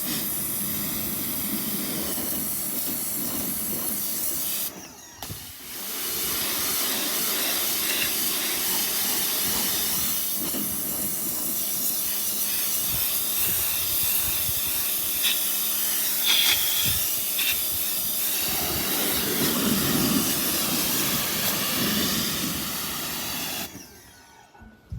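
Pressure washer spraying: the jet's steady hissing rush over a faint steady pump hum. The spray cuts out briefly about five seconds in, then runs on and stops about a second before the end.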